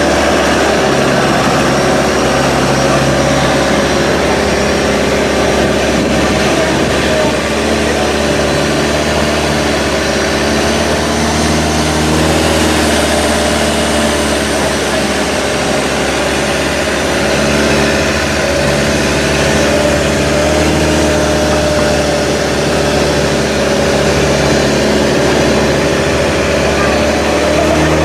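Motorboat engine running steadily under way, its pitch shifting a little now and then, over a constant hiss.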